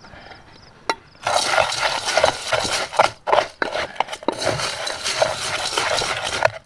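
A spoon stirring and scraping a thick mixture of crushed instant noodles and batter in a metal camping pot: a steady scraping with many small clinks, starting about a second in.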